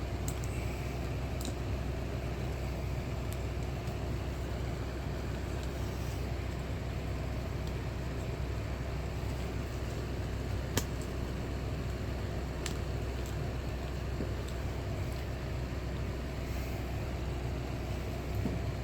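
Steady low hum and rumble with a faint steady tone above it, broken by a few faint short clicks, the sharpest about eleven seconds in.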